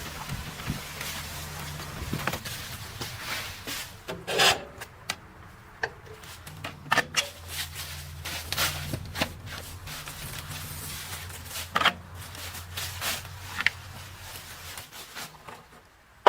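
An engine-driven wood splitter runs with a steady low hum. Repeated sharp cracks, creaks and scraping of wood sound over it, and the hum stops near the end.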